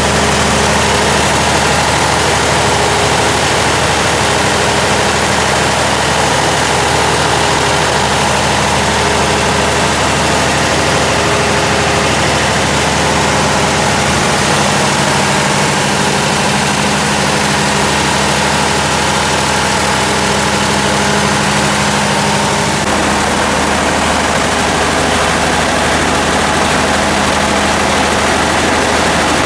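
Freshly rebuilt Cummins Big Cam NT855 inline-six turbo diesel running steadily at an even speed, mounted in a generator set.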